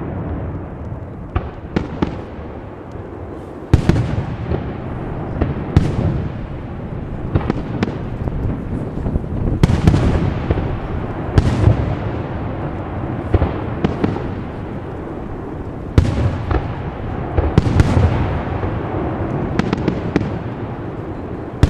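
Aerial firework shells bursting one after another: sharp bangs every second or two, with a continuous low rumble between them. The loudest bangs come about four seconds in and again near sixteen seconds.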